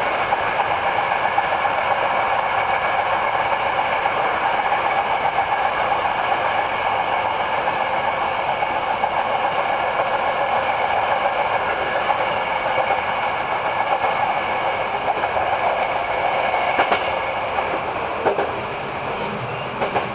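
Hankyu 8000 series electric commuter train running along the line, heard from inside at the front: steady wheel and running noise, with a few sharp rail clicks near the end as the noise eases slightly.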